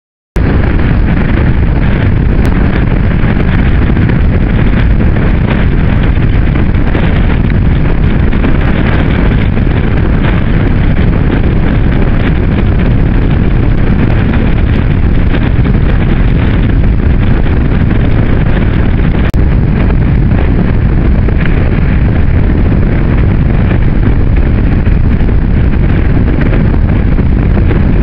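Strong wind buffeting the camera microphone in a loud, continuous rumble, mixed with surf breaking on a rock breakwater. It starts abruptly.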